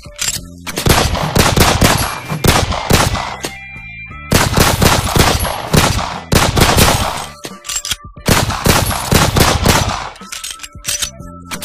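Three long bursts of rapid automatic gunfire, a sound effect over low background music, each lasting two to three seconds with short gaps between.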